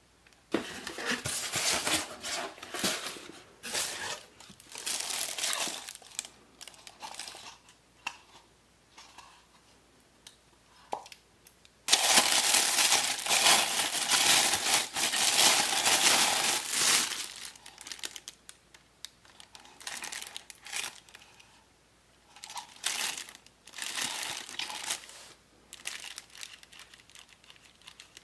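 Packing material crinkling as the parts of a new ceiling fan are unwrapped, in irregular bursts with a longer, louder stretch of about five seconds near the middle.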